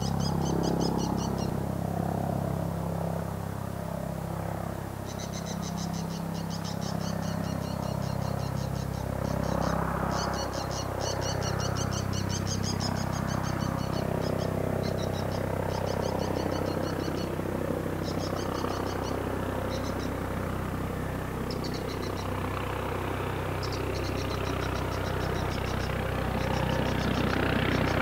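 Eurocopter EC155B twin-turboshaft helicopter approaching, its steady low rotor and engine hum swelling louder near the end as it comes close. Over it, bursts of rapid high-pitched chirping trills come and go.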